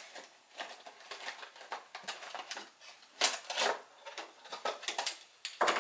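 Irregular clicks, taps and crinkling as a plastic blister pack and a small battery maintainer's cord and clamps are handled and unpacked, with a quick run of clicks near the end.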